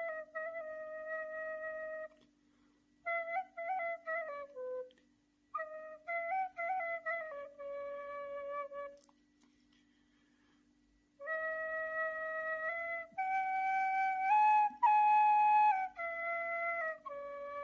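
Nay, an end-blown reed flute, playing a slow solo melody in phrases separated by short pauses, one longer pause of about two seconds in the middle. The notes bend and waver in ornaments between longer held tones.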